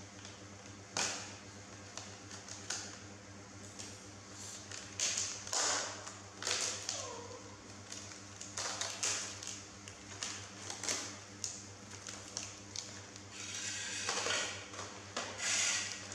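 Thin plastic crackling and clicking as a clear plastic snack cup of popcorn and its lid are handled and pried open: a string of sharp crinkles and snaps, with a longer rustling stretch near the end.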